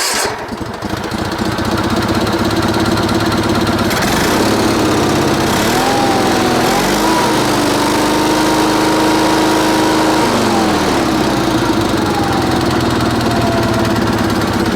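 Sears Suburban SS16 garden tractor's 16 hp Onan twin-cylinder engine starting and running steadily. About six seconds in it is throttled up to a higher speed, held there for a few seconds, then brought back down near eleven seconds.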